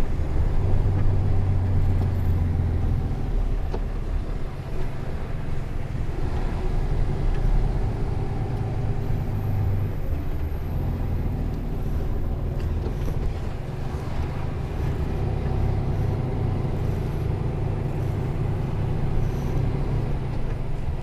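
Cab-interior sound of a Mercedes-Benz Antos 1824 rigid lorry's diesel engine running as the lorry drives slowly, a steady low drone whose strength rises and falls with the engine speed, with road noise underneath.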